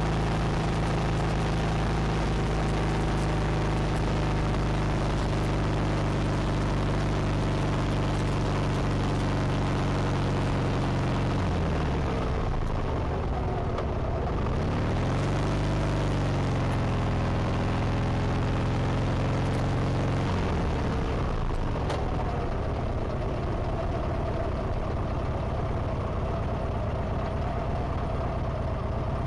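Harley-Davidson Sportster 1200's V-twin engine under way with wind noise. The engine note holds steady, drops as the bike slows about twelve seconds in, dips and climbs again through a gear change, then falls away after about twenty seconds as the bike slows toward a stop.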